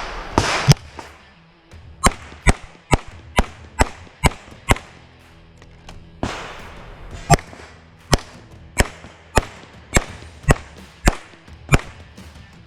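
CZ 75 TS Czechmate pistol firing rapid single shots, about two a second, in two strings separated by a pause of about two and a half seconds near the middle.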